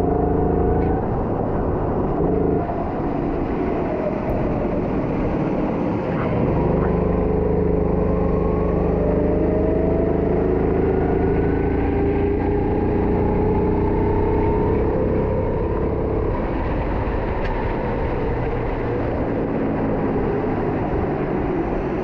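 Go-kart engine running hard under the driver, its pitch dipping when the throttle eases and climbing steadily through a long stretch of acceleration in the middle, then falling again into a corner.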